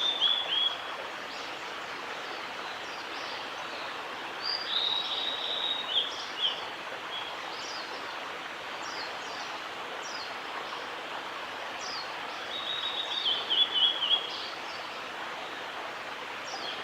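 Male blue-and-white flycatcher singing: three song phrases several seconds apart, each a high whistle falling into a quick run of repeated notes, the last one near the end loudest. A steady background hiss runs beneath.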